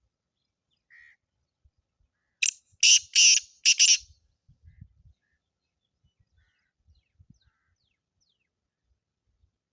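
Black francolin calling: a faint short note about a second in, then a loud, harsh phrase of four grating notes lasting about a second and a half. A few faint high chirps follow.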